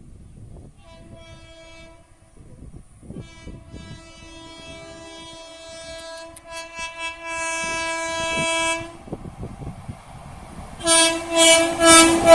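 Air horn of an approaching Indian Railways electric locomotive on a fast passenger train, growing louder as it nears. A short blast about a second in, a long held blast from about three to nine seconds, then several short loud blasts near the end as the train reaches the platform, with the rush of the passing train starting right at the end.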